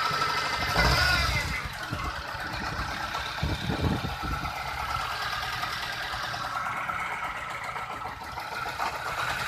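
Peugeot 206's 1.4 litre four-cylinder petrol engine running with an ignition misfire, with a brief louder surge about a second in.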